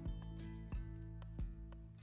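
Background music: held chords with a steady beat.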